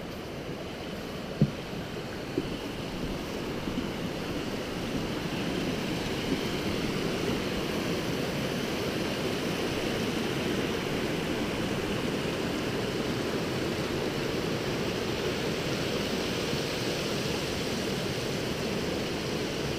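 Mountain beck rushing over rocks, a steady rushing that grows a little louder over the first few seconds and then holds. Two sharp knocks sound near the start.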